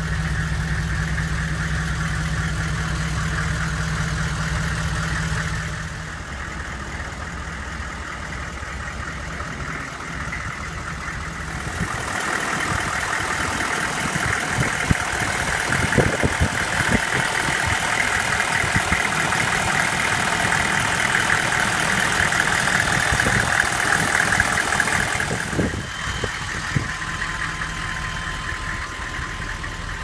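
2000 Chevrolet 3500HD's 6.5-litre V8 diesel idling steadily. Partway through it becomes louder and brighter, with a rapid knocking clatter, for about fourteen seconds before dropping back to a softer hum.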